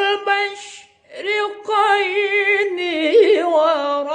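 A male qori reciting the Quran in melodic tilawah style, unaccompanied, holding long notes with vibrato. A first note breaks off about a second in, then a longer note wavers and steps down in pitch near the end.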